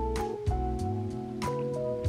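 Instrumental background music: held chords with light percussion ticks.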